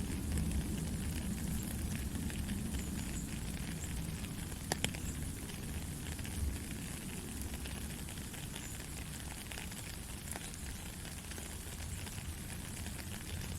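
Steady rain falling, a continuous hiss with a low rumble beneath it and a few sharper ticks of individual drops.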